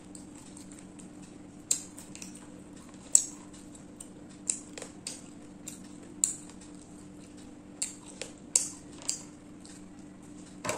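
Eating sounds: a dozen or so scattered sharp clicks and clinks of eating from a plate, the loudest about three seconds in, over a steady low hum.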